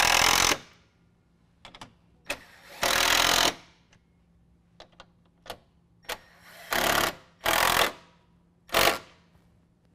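Cordless impact driver with a socket hammering 10 mm bolts tight, in five short bursts of about half a second each, the first stopping just after the start and the others about 3, 7, 7.5 and 9 seconds in. Small clicks come between the bursts.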